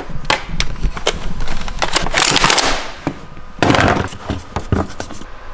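Hydrogen-oxygen (HHO) modified Nerf Mega blaster being worked and fired: clicks and rattles of its mechanism, a short hiss about two seconds in, and a sharp bang about three and a half seconds in as the gas mix ignites.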